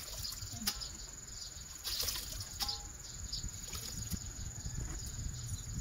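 Water splashing and dripping as handfuls of shredded banana flower are lifted and squeezed over a basin of water, with a few short splashes. A steady high-pitched insect drone runs behind it.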